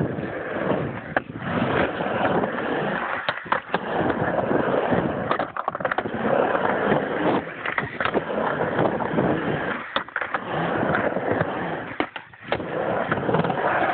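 Skateboard wheels rolling on a plywood ramp: a continuous rolling rumble, broken by sharp clacks and a few short gaps.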